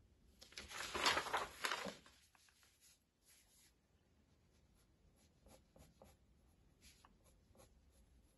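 Sheets of drawing paper rustling as they are moved around during the first two seconds, then a pencil sketching on paper in faint short strokes.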